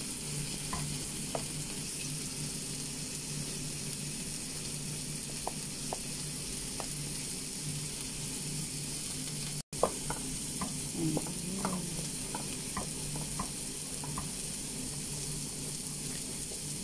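Steady sizzling hiss of cooking as a wooden spatula stirs chopped molokhia in a pot of bubbling broth, with light, scattered clicks of the spatula against the pot. The sound cuts out for an instant about halfway through.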